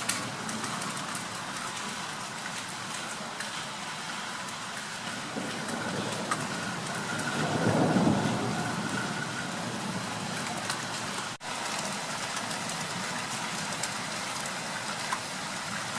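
Steady rain falling at the start of a thunderstorm. About halfway through, a low rumble swells for a few seconds and fades.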